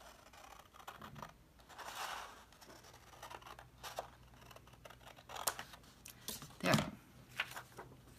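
Regular scissors cutting paper in a series of short, irregular snips, with paper rustling between cuts and one louder handling noise near the end.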